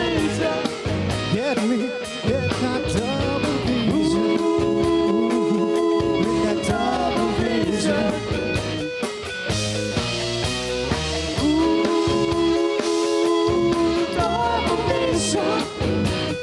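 Rock music with guitar and a steady beat, with long held notes twice.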